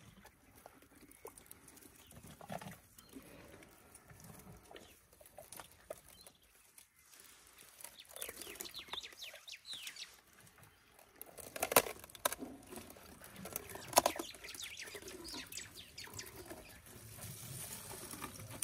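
African elephant feeding on dry thorny branches: twigs crackling and crunching as it breaks and chews them, with two loud sharp cracks about two seconds apart in the second half.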